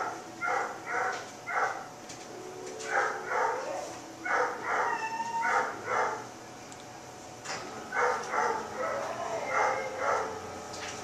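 Dog barking in quick runs of three to six barks, with pauses of a second or two between runs.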